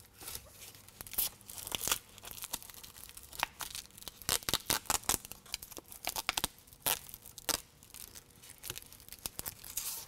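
Backing liner being peeled off a strip of 3M adhesive Velcro and the tape pressed into place, with irregular crackles and crinkles of the liner in several short bunches.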